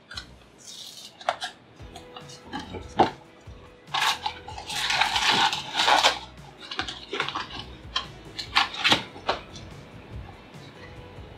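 A cardboard candy-kit box being opened and handled: scattered snaps and crinkles, with a longer stretch of tearing and rustling between about four and six and a half seconds in.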